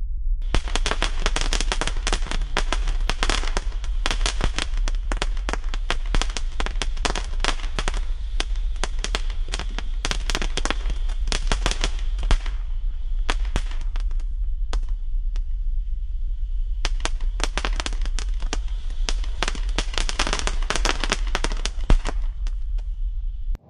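Nico Funky Monkey firework fountain compound spraying crackling stars: a dense, fast crackle that thins to scattered pops for a few seconds about halfway through, then turns dense again before thinning near the end.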